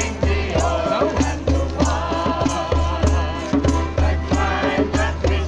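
Gospel hymn sung to an amplified backing track: voices singing over a steady pulsing bass beat and light percussion.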